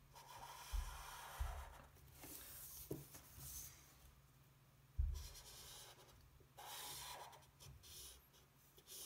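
Gray felt-tip marker strokes rubbing across paper, faint, in several passes of a second or so with short pauses between them. A few soft low bumps, the loudest about halfway through.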